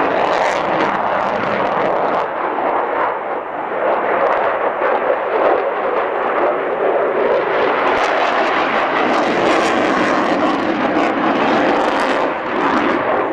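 Loud, steady jet engine noise of a Russian jet fighter flying a display overhead, with crackling spikes in the second half.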